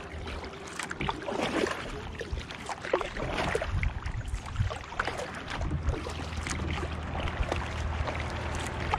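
Double-bladed kayak paddle dipping into calm lake water on alternate sides, stroke after stroke, with splashes and drips from the blades.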